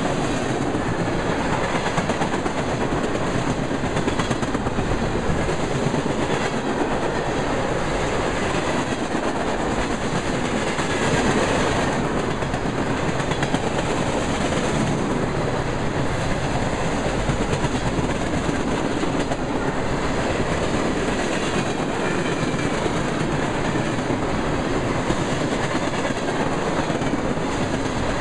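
Tank cars of a freight oil train rolling past close by: a steady rumble of steel wheels on the rails with clickety-clack over the rail joints.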